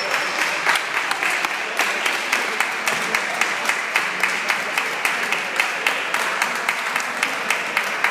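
Spectators applauding, with sharp claps landing about twice a second over a steady patter of hands, and voices mixed in.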